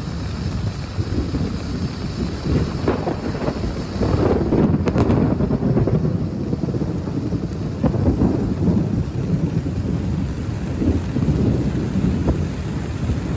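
A flash flood torrent rushing, heard as a loud, gusty low rumble with irregular surges, with wind buffeting the phone's microphone.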